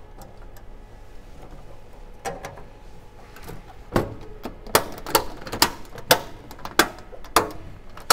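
BO-105 helicopter engine cowling being closed and its latches fastened: light handling noise, then from about halfway a run of about eight sharp clicks and knocks, roughly two a second.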